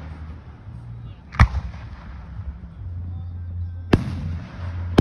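Aerial firework shells bursting: two sharp bangs, one about a second and a half in and one about four seconds in, with another just as it ends, over a low steady hum.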